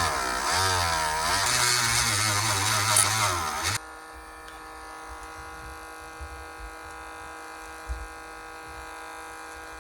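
Dremel rotary tool with a fine-grit sanding stone grinding a plastic flashlight lens, its motor pitch wavering under load, then cutting off suddenly about four seconds in. A fainter steady hum with a few light knocks follows.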